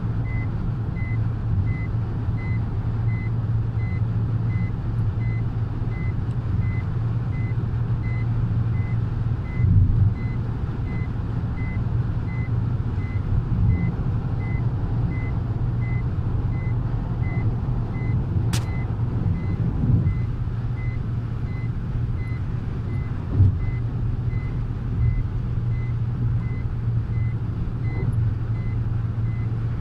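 Car cabin at motorway speed: steady engine and tyre drone, with an electronic warning chime beeping regularly about one and a half times a second. A single sharp click sounds about two-thirds of the way through.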